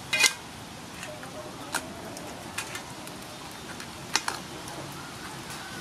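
Crab shells clacking against each other and the aluminium pot as the crabs are handled. There are a few sharp clicks, the loudest just after the start and another about four seconds in.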